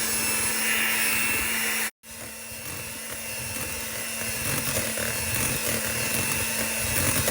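Electric kitchen mixer running steadily, beating flour into sugar-cookie dough, with a low hum and a high whine. It drops out abruptly about two seconds in, then runs on, a little quieter at first and building back up.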